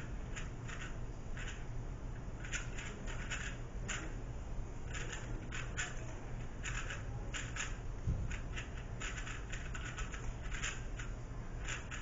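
3x3 Rubik's cube being turned at speedsolving pace: a fast, irregular run of short plastic clicks and clacks as the layers snap round.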